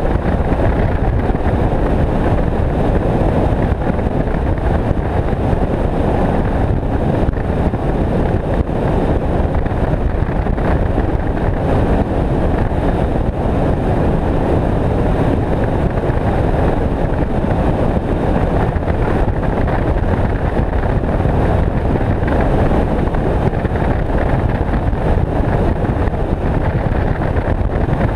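Skeeter bass boat running at speed across open water: a loud, steady rush of wind over the microphone, with the boat's motor and the water underneath.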